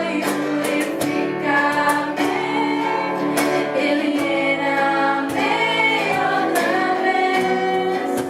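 Worship song: several voices singing together over a regularly strummed acoustic guitar.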